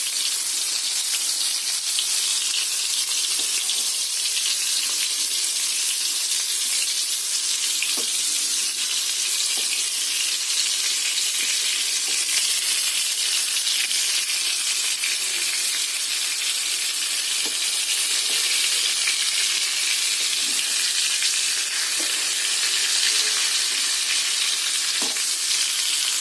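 Stuffed tomatoes frying in oil in a heavy kadai on a low flame, a steady sizzle with a few faint light taps scattered through it.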